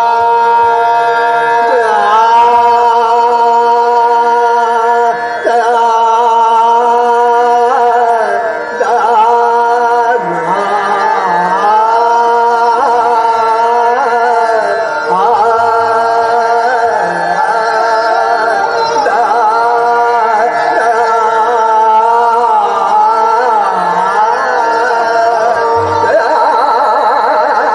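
Hindustani classical vocal performance: a male voice sings long, gliding, ornamented phrases over a steady drone.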